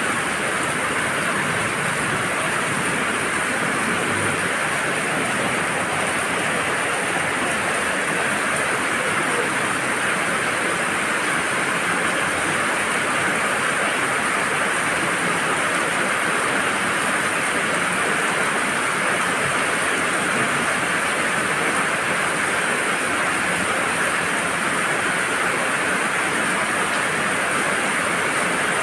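Heavy rain pouring steadily onto a wet road and pavement, an even, unbroken hiss.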